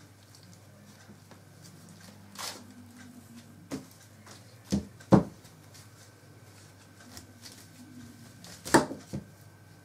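Green husks being stripped by hand from ears of sweet corn: crisp rustling and tearing of the husk leaves, with a few sharp snaps, the loudest about five seconds in and again near the end.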